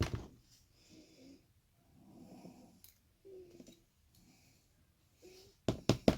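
A man breathing audibly through the nose with a few soft wordless hums, then a short cluster of sharp clicks near the end.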